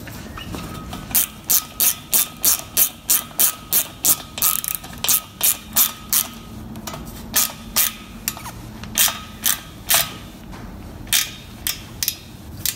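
A small hand ratchet clicking as it tightens a worm-drive hose clamp on the exhaust. The clicks come at about three a second for the first half, then slow into short, spaced-out groups.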